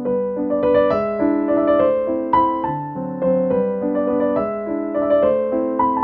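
Background piano music: a light melody of short notes changing over a steady accompaniment.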